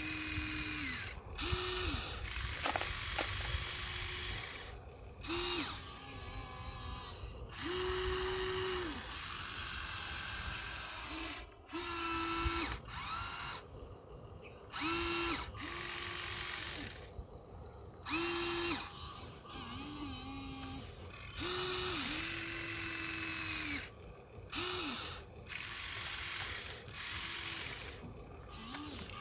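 Huina 1593 RC excavator's electric motors and gearboxes whining in many short stop-start bursts as its boom, arm and bucket move.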